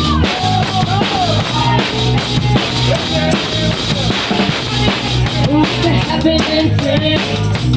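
Live rock band playing an instrumental passage, with the drum kit up front: steady bass drum and snare beat under a bass line and a melodic riff.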